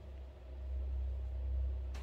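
Sewing machine running, stitching elastic onto a pyjama-pants waistband with a steady low motor hum, then stopping near the end with a click.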